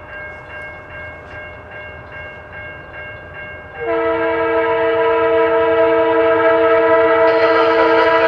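Grade-crossing bell ringing about three strikes a second, then about four seconds in a freight locomotive's multi-note air horn opens up in one long, loud blast as the train approaches the crossing, with the train's running noise building under it near the end.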